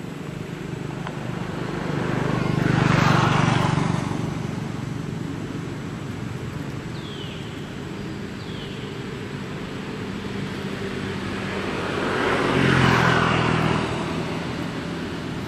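Two motor vehicles passing on a road, each swelling up and fading away, the first about three seconds in and the second a couple of seconds before the end.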